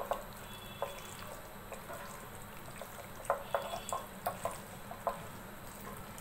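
Bare hand squeezing and mixing raw chicken pieces in an oily spice marinade in a bowl: irregular wet squelches and soft smacks, coming more often a little past the middle.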